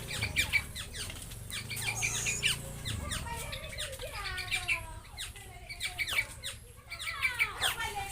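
Birds calling: a dense run of quick, short chirps, joined about halfway through by a series of falling squawk-like calls.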